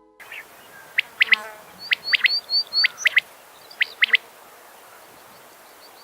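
Bird calls: a scatter of sharp, steeply falling whistled notes, with a quick run of five short rising notes about two seconds in; the calling stops after about four seconds.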